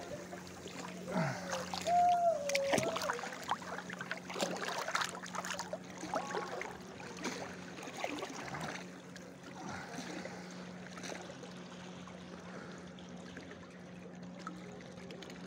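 Sea water lapping and trickling close to the microphone at the surface, with irregular small splashes and a steady low hum. About a second in, a wavering pitched sound rises and dips for a couple of seconds.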